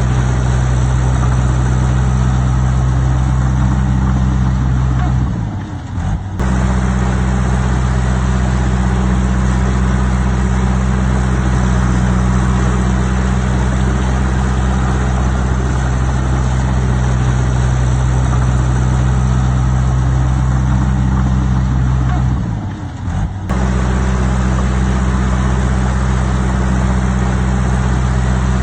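Diesel engine of heavy earthmoving equipment running loud and steady at constant speed, with two brief dips about six seconds in and again near twenty-three seconds.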